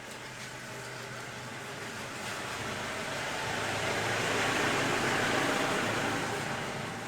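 A road vehicle passing by: a broad rushing noise that swells to a peak about five seconds in and then fades, over a faint steady low hum.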